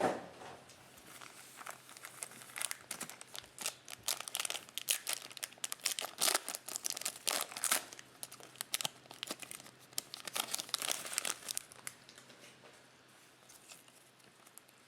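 Trading card pack wrapper being torn open and crinkled by hand, a dense run of crackling from a couple of seconds in, thinning out near the end.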